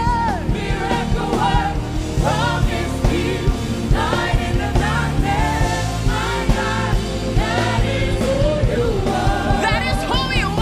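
Live gospel worship music: voices singing and vocalising over a band with sustained bass and a regular drum beat.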